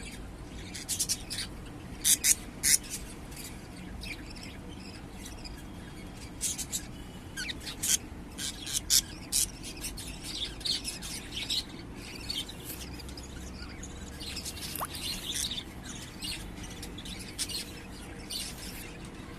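Budgies chirping: many short, sharp high-pitched calls come in irregular clusters, some much louder than others.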